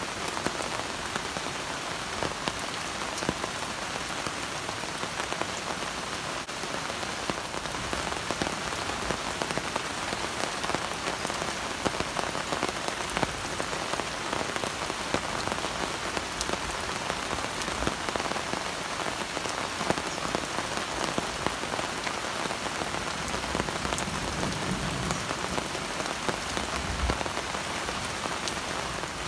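Steady rain pattering, a dense hiss studded with many small drop ticks.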